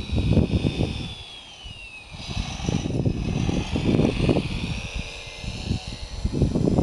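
Whine of a 1/14-scale radio-controlled Komatsu WA470-6 wheel loader's electric drive, falling in pitch early on as the machine slows and rising again as it moves off across the gravel. Gusts of wind buffet the microphone throughout, coming and going in low rumbles.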